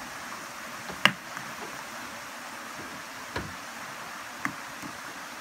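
Shallow creek water running steadily, with sharp clacks of stones knocked together as rocks are set in a line in the water: one loud clack about a second in, two fainter ones later.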